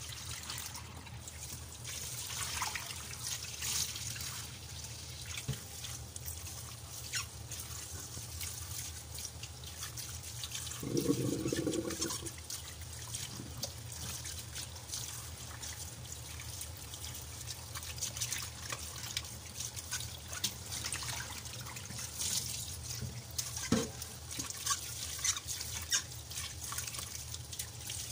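Tap water trickling into a stainless steel pot in a kitchen sink while hands rub and rinse soaked dried sea cucumbers, with small splashes throughout. A short low hum comes in about 11 seconds in.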